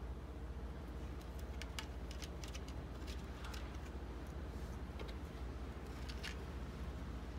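A cat eating from a dish: faint, irregular crunching clicks from chewing, over a steady low rumble of distant traffic.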